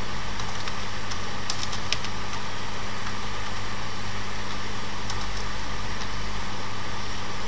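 Steady electrical-sounding hum and hiss, with a few faint computer keyboard key clicks as a line of code is typed, the clicks falling in the first two seconds and again about five seconds in.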